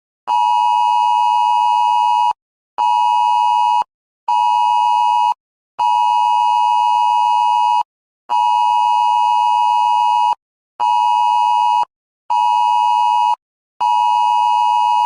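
Electronic weather-alert tone: one steady high beep, sounded in a pattern of long and short beeps (long, short, short, long, long, short, short, long) with brief gaps between.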